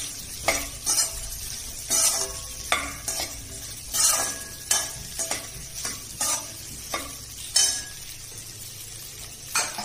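Perforated steel skimmer spoon scraping and turning cut okra in an aluminium kadai, in repeated short strokes about once or twice a second with a pause near the end, over a steady oil sizzle as the okra sautés.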